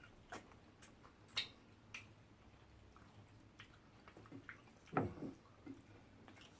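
Faint mouth sounds of eating fufu and peanut soup: scattered wet smacks and clicks, with one short, louder sound about five seconds in.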